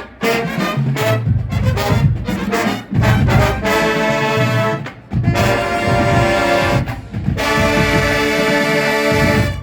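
College marching band playing: brass chords over drums, finishing on a long held chord that cuts off sharply just before the end.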